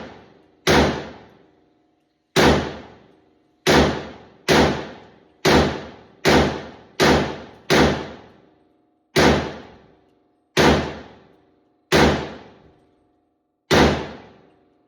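A series of about a dozen loud, heavy bangs at uneven intervals of roughly a second, each ringing on briefly with a low hum before dying away.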